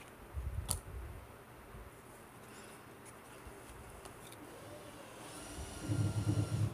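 Baseball trading cards being shuffled through by hand, one card slipped from the front of the stack to the back at a time, with soft card-on-card slides and small ticks. Dull low handling thumps come about half a second in and near the end, with a sharp click just after the first.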